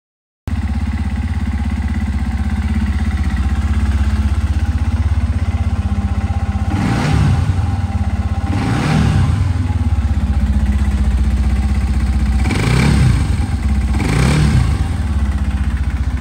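WK Scrambler 125's single-cylinder 125cc engine idling with the bike in neutral, its throttle blipped four times in two pairs, each rev rising and falling back to idle.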